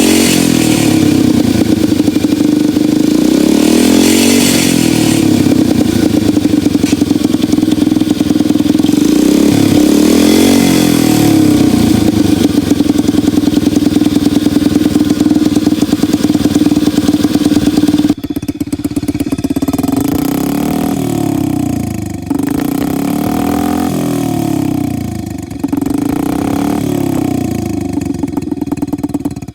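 Dirt bike engine running with a novelty turbo whistle fitted to its exhaust, revved up and down again and again over a steady tone. About two-thirds of the way through it turns quieter and duller.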